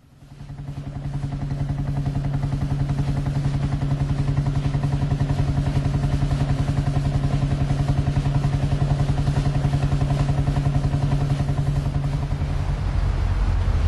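An engine running steadily with a fast, even pulse, fading in over the first second or two. Near the end a deeper rumble grows.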